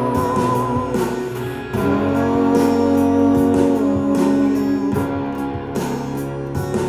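Recorded guitar music played back over a hi-fi system, with sustained guitar notes.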